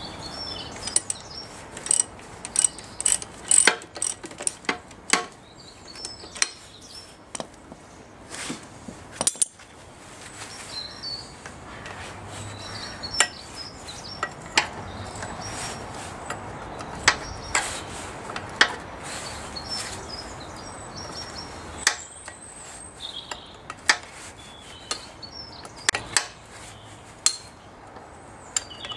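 Ratchet spanner clicking in short, irregular runs with sharp metal clinks, as self-locking nuts are run onto and tightened on the bolts that hold the half shaft and brake disc on a rear hub.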